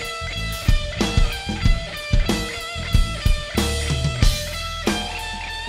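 Live rock band playing an instrumental passage without singing: a drum kit keeping a steady beat under sustained electric guitar and bass guitar.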